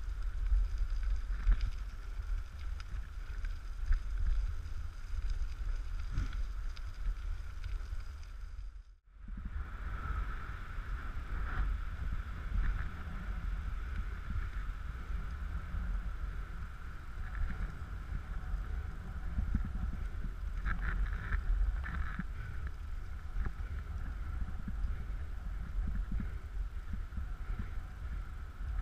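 Steady wind buffeting the microphone and a rumble of movement along a dirt track behind two running huskies. The sound cuts out sharply for a moment about nine seconds in.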